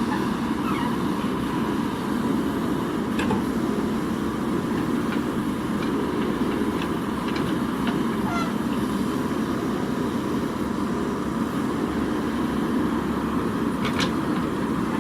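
JCB 3DX backhoe loader's diesel engine running steadily under work, with a faint steady high tone over it. Two sharp clicks, one about three seconds in and one near the end.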